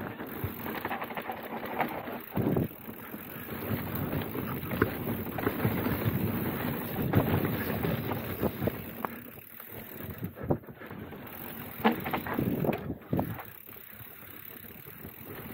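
Mountain bike descending a dry, loose dirt trail at speed: tyres rolling over dust and bumps, with frequent knocks and rattles from the bike hitting roots and ruts, and wind buffeting the camera microphone. It goes quieter for the last few seconds.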